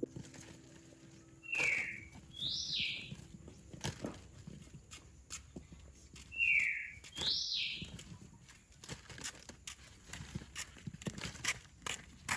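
A bird calling twice, each call a short falling whistle followed by a higher rising-and-falling one, over scattered light clicks and knocks.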